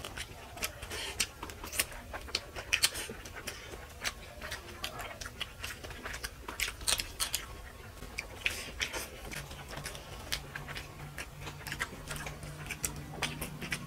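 Eating sounds: fingers mixing rice and fish curry on plates, with chewing and mouth clicks, as a stream of irregular small clicks and squelches. A faint low hum joins about two-thirds of the way through.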